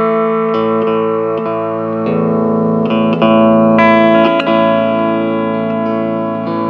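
Hawaiian steel guitar playing a slow melody of long, held notes over steady low chords.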